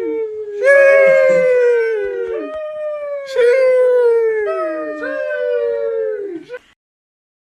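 A dog howling: a run of long howls, each sliding slowly down in pitch, that stops shortly before the end.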